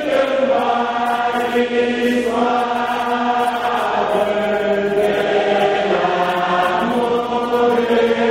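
Church congregation singing a hymn together in slow, long-held notes that step to a new pitch every second or two.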